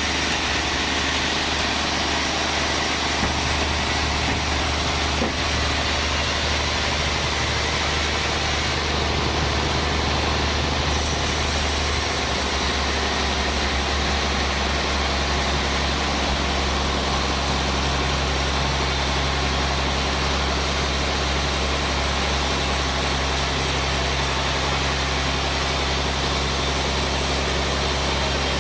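Sawmill band saw machinery running steadily with a loud low hum. About 11 seconds in, the high hiss grows louder and the hum shifts slightly.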